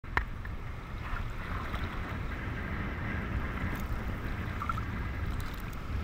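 Small waves sloshing and lapping against an action camera's housing held at the sea surface, with a steady low rumble of water buffeting the case. A sharp knock right at the start.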